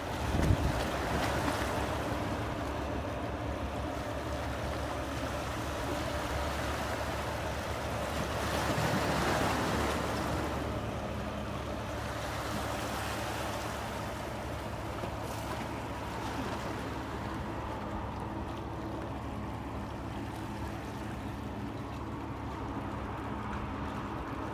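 Steady low drone of a large ship's engine as an oil tanker passes close by, mixed with water wash and wind on the microphone; the wind swells for a couple of seconds about eight seconds in.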